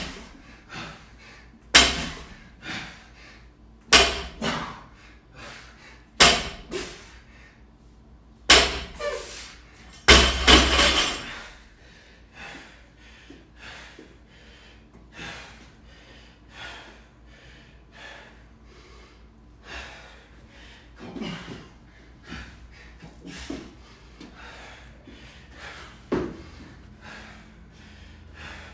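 Barbell loaded with rubber bumper plates dropped onto a rubber floor mat after each deadlift: a hard slam with a smaller rebound about every two seconds, six times, the last drop followed by a longer clatter. After that, only softer scattered sounds.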